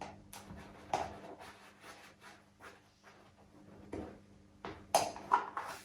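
Scattered light clicks and taps of plastic being handled while the battery cover screw on a baby rocker is undone, a few sharper knocks near the end.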